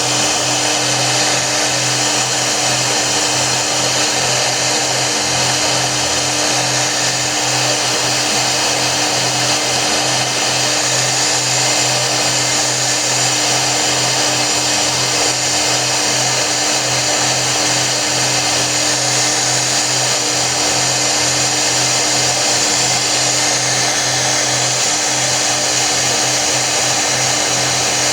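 CNC router running steadily: an even motor hum with a continuous hiss over it.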